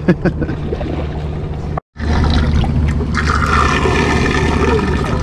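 Seawater pouring and trickling into a sportfishing boat's live-bait tank, the pour loudest from about three seconds in, over the steady hum of the boat's engine. It opens with a few sharp knocks, and the sound cuts out for a moment partway through.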